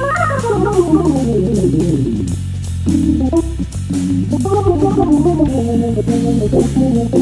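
Jazz waltz on a Hammond SK1 organ: a fast descending run over the first two seconds, then chordal phrases, over a walking bass line from a MIDI bass pedalboard. A drum kit keeps time with regular cymbal and drum strokes.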